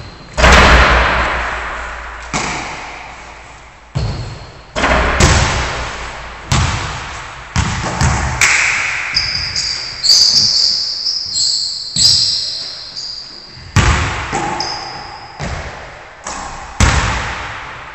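A basketball thudding on a wooden gym floor and against the hoop during three-point shooting, about a dozen irregular impacts. Each impact rings out in the hall's long echo.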